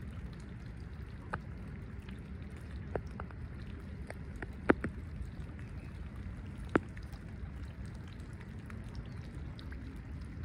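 Ducks dabbling on a pond: a handful of small, sharp water splashes and drips, the loudest a little under five seconds in, over a steady low rumble.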